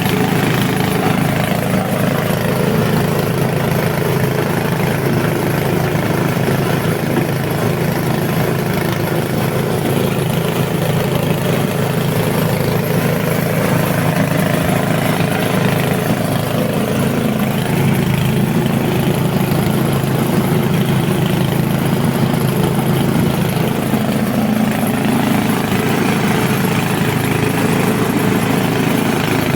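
Foam-and-rag shredding machine running steadily, a continuous motor hum with a slowly wavering pitch.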